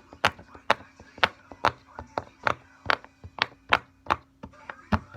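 Rainbow circle silicone pop-it fidget having its bubbles pressed one after another on its good side: a run of sharp pops, about three a second.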